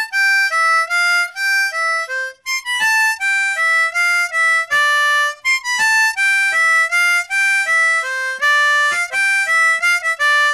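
Diatonic C harmonica (blues harp) playing a melody of single notes by tongue blocking: the tongue covers the two holes on the left and the melody sounds through the hole on the right. The notes are short, about three or four a second, with a few brief breaths between phrases.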